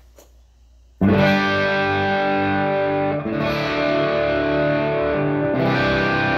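Gibson Les Paul electric guitar played with overdrive through a Marshall DSL20HR valve amp. A distorted chord is struck about a second in and left ringing, then the chord changes twice, a little after three seconds and again near the end.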